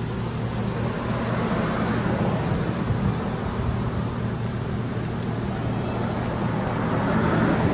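Steady outdoor background rumble with a low hum, getting slightly louder near the end.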